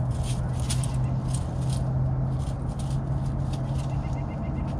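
Dry leaves and peanut shells rustling and crackling in short irregular bursts as a fox squirrel forages and grabs peanuts, over a steady low hum.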